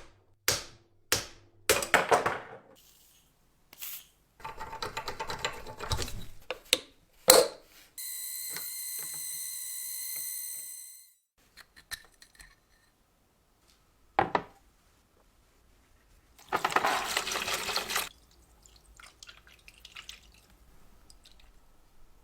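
Workshop cleaning and handling sounds from the restoration of an old apple peeler: a series of sharp clicks and knocks, two bursts of rushing noise, and a steady hiss lasting about three seconds from about eight seconds in.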